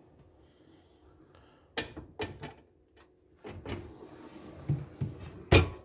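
A wooden pull-out drawer loaded with pots is drawn out on its drawer slides. A few light knocks come about two seconds in, then a rolling, rumbling slide noise with small knocks, and a sharp thump near the end.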